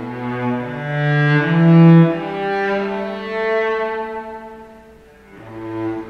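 Solo cello, freely improvised: slow, sustained bowed notes that shift in pitch, some sounding together, swelling to their loudest about two seconds in, fading around five seconds, then a new low note swells up near the end.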